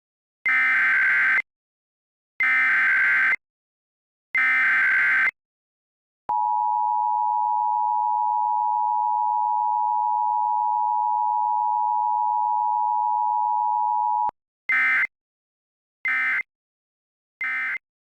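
Emergency Alert System tones: three SAME header data bursts of about a second each, then the two-tone attention signal held steady for about eight seconds, then three short end-of-message data bursts.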